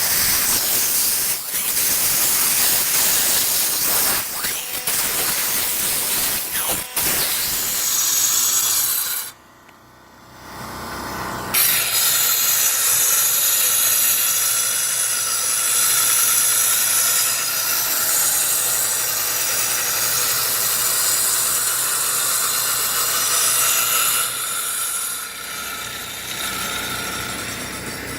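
Power saw with a Bauer blade cutting control joints into a concrete slab, a loud gritty hiss. About nine seconds in it stops for roughly two seconds, then starts again and runs steadily with a whine.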